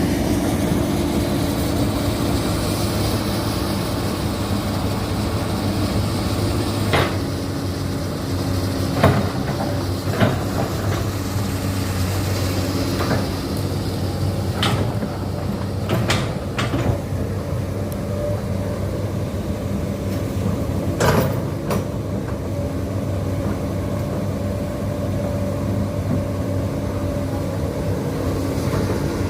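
Komatsu PC200-8 hydraulic excavator's diesel engine running steadily at work. Several sharp knocks or clanks come through, scattered mostly in the first two-thirds.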